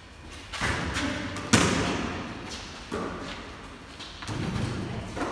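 A basketball thudding several times, about five hits off the portable hoop and the concrete floor. The loudest hit comes about one and a half seconds in.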